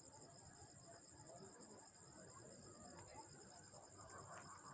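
Faint, steady chirring of crickets, a rapidly pulsing high-pitched trill.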